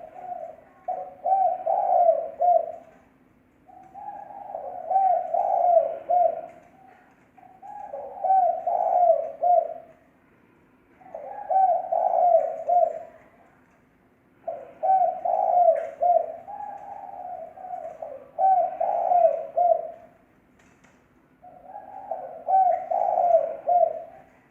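Spotted dove cooing: about seven phrases of several low coos each, one every three seconds or so, with short pauses between.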